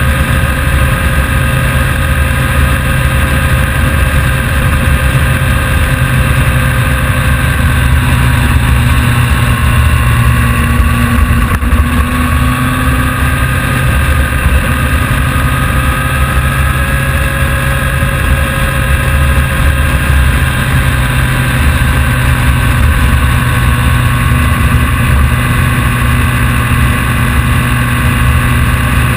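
A vehicle's engine running steadily under way, loud and close, its pitch drifting slowly up and down a little without any hard revving.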